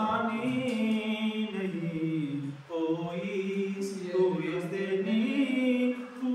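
A man's voice chanting a slow, drawn-out melodic line with no clear words, in the sung style of reciting Urdu shayari. It breaks off briefly about two and a half seconds in, then carries on.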